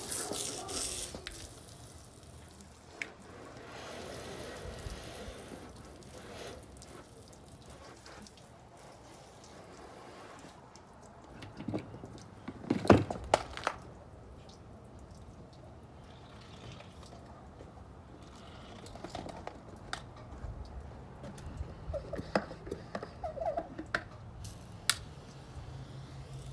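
Water spraying from a hose nozzle onto a car for about a second at the start, then dripping and splashing with scattered clicks and knocks as the hose and washing gear are handled. A loud clatter of knocks about thirteen seconds in is the loudest sound.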